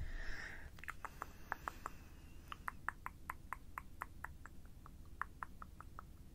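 ASMR mouth sounds close to a sensitive microphone: a brief breathy hiss, then a quick run of small wet tongue and lip clicks, several a second, until near the end.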